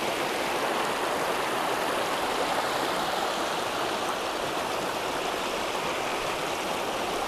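Spillway water rushing steadily over shallow rocks.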